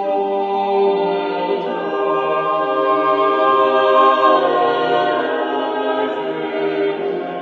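Background choral music: a choir holding long, slow chords.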